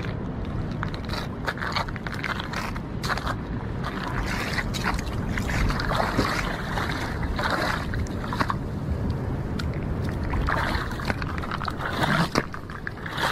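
Shallow rock-pool water splashing and sloshing in irregular bursts as a large blue groper swims and flaps about in it.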